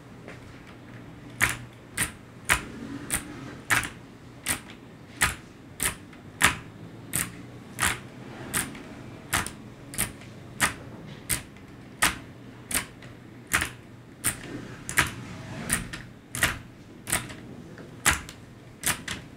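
Clicky Kailh optical switches on an ABKO HACKER K8300 mechanical keyboard, pressed one key at a time in sharp, separate clicks, about one to two a second, starting a little over a second in.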